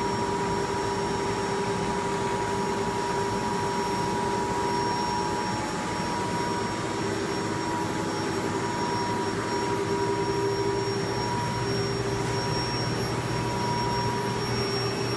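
Steady hum and whir of the fish farm's recirculating water-treatment machinery running (pumps and filtration and sterilizer units), a few steady tones over an even noise.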